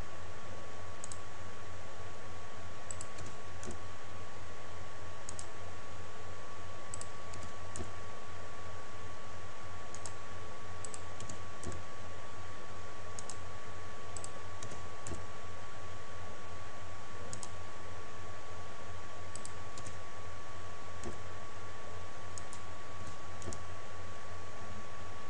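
Scattered, irregular clicks of a computer keyboard and mouse over a steady low electrical hum and a thin, steady whine.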